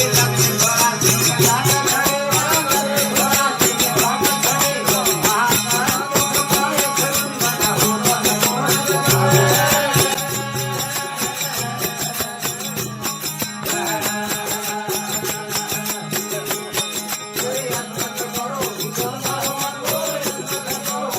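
Live Rajasthani folk bhajan music with desi veena: fast metallic jingling keeps a steady beat under a melodic line. It gets a little quieter about halfway through.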